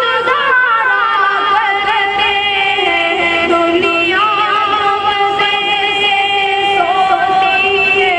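A boy singing a naat, an Urdu devotional poem, solo, in long held notes with ornamented turns between them.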